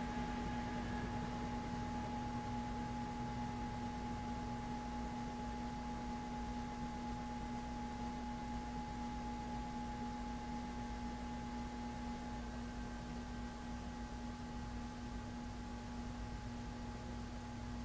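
Moss Marco Polo ceiling fan's CEC-made motor running with a steady electrical hum and a fainter higher tone above it, the loud motor hum typical of these motors.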